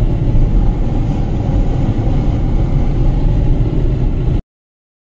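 Steady low rumble of road and engine noise inside a moving car's cabin. It cuts off suddenly near the end.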